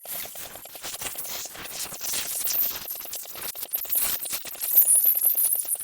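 Espresso machine steam wand hissing into a jug of milk and chocolate powder, frothing it with a rapid sputtering chatter. The hiss starts suddenly and grows louder.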